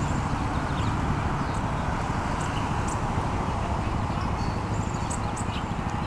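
Steady outdoor background noise with a low rumble, with a few faint, short high chirps scattered through it.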